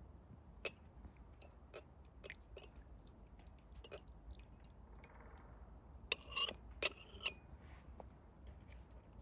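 Tulip-shaped Turkish tea glasses and glass saucers being handled, with light clinks throughout and tea poured from a glass into a saucer. Twice, about six and seven seconds in, a glass rings briefly as it touches the saucer.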